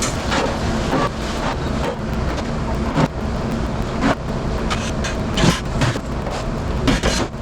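Commercial kitchen dish pit at work: a steady rumble of running machinery with sharp clatters and knocks of dishes every second or so.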